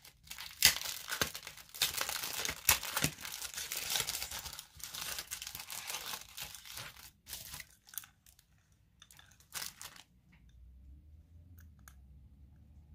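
Thin plastic packaging torn open and crinkled by hand: a dense run of crackling rustles with sharp snaps, thinning out to a few scattered crackles and stopping about ten seconds in.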